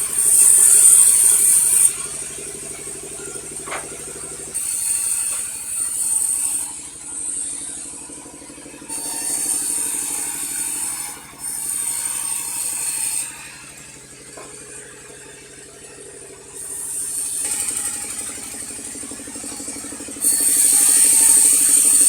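Sawmill running with a steady engine hum, its saw cutting into a log in repeated passes of a few seconds each, a shrill hiss and whine that rises and drops away between cuts.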